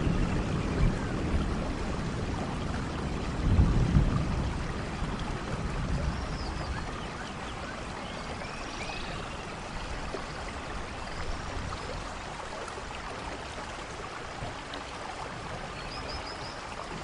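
Steady rain falling on forest foliage, with a low rumble of thunder early on that swells about four seconds in and then fades away.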